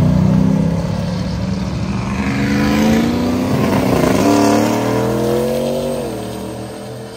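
A car's engine accelerating away, its pitch climbing, breaking off briefly about four seconds in and climbing again, then dropping and fading as the car pulls off.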